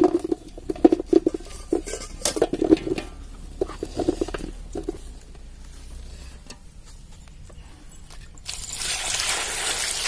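Ivy gourds tumbling from a wicker basket into a metal bowl: a quick patter of small knocks on the metal and on each other over the first few seconds, then a quieter spell. About eight seconds in, water starts pouring onto the gourds in the bowl with a steady rush.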